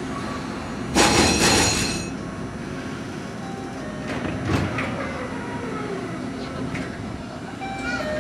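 Tokyu Setagaya Line 300 series tram standing at a platform with its equipment humming steadily. A loud hiss lasts about a second, starting about a second in, and a short sharp sound comes a few seconds later.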